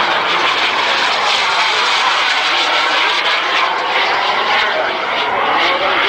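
Radio-controlled model jet flying overhead, its engine a loud, steady rushing whine that wavers up and down in pitch.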